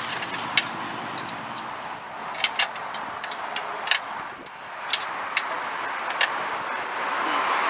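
About seven sharp metallic clicks and taps at irregular intervals, a wrench working a rusted bolt on a garden tractor's snowplow mounting bracket, over a steady background hiss.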